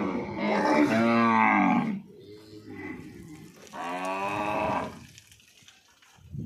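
Kankrej cows mooing: a long, loud call lasting about two seconds, then a second call about four seconds in.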